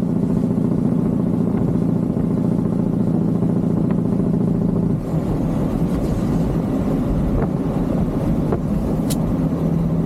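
Diesel engine of a Peterbilt 379 heavy-haul truck running steadily as the truck rolls downhill at about 250,000 lb gross weight. About halfway through, the even drone turns rougher and less even. It settles back into a steady drone near the end, and there is one sharp click just before it does.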